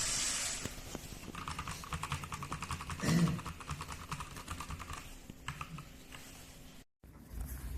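Rapid typing on a full-size mechanical keyboard with red linear switches and ABS double-shot keycaps, a quick run of light key clicks with one louder knock about three seconds in. The sound drops out briefly near the end.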